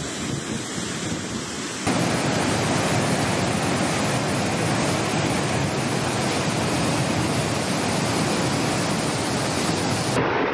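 Muddy floodwater rushing through river rapids and over a weir: a steady, loud rushing noise that jumps louder about two seconds in.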